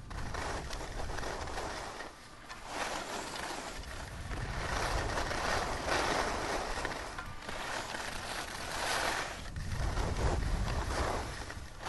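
Field recording of skis swishing over snow: hissing swells that rise and fade every second or two, with a low rumble now and then.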